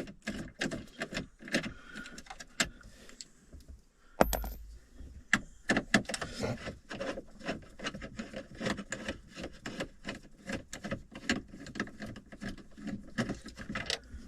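Irregular clicking, clattering and rattling of hand tools and hardware while a car stereo is worked out of a pickup's dash, with one heavy thump about four seconds in.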